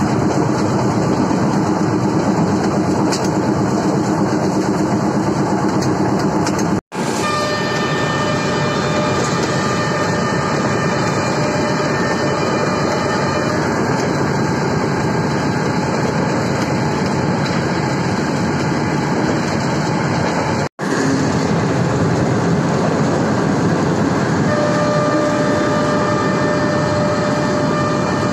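A Class W2 diesel-hydraulic locomotive running at speed, heard from its cab window as a loud, steady mix of engine and running noise with faint steady whines. The sound cuts out abruptly for a moment twice, about 7 and 21 seconds in.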